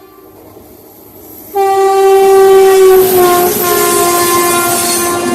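Indian Railways train horn: after a quieter second and a half, a long, loud horn blast starts suddenly and holds, its pitch dropping a little about three seconds in, over the noise of the train running on the track.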